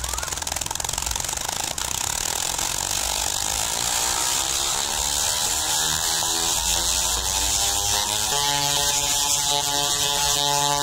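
Large Tesla coil discharging: a loud, harsh, continuous electric buzzing crackle as purple arcs shoot from its toroid. Its pitch climbs over several seconds, then steps to a steady higher buzz about eight seconds in.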